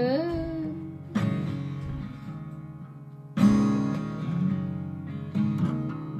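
Background music: a guitar strumming slow chords that ring out and fade, with fresh strums about a second in, past the middle and near the end.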